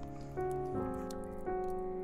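Background music: a melody of held notes, changing about every half second.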